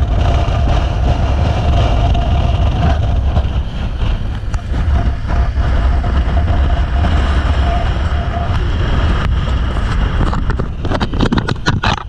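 Motorcycle riding at road speed, heard as heavy wind rumble on the camera microphone over engine and road noise, with a faint steady whine that fades about two-thirds of the way through. Near the end comes a quick run of knocks as the handlebar-mounted camera is handled.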